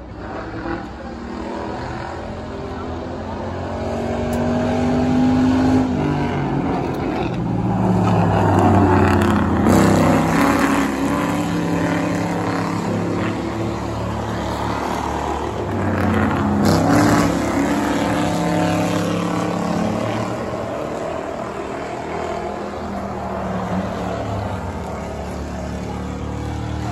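Several V8 Crown Victoria-style stock cars running laps of a short oval track. Their engine notes swell and fall away in pitch as the cars pass, loudest about nine and seventeen seconds in.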